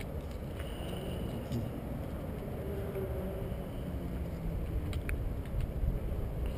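Steady low outdoor rumble with faint distant voices, and one sharp click about five seconds in.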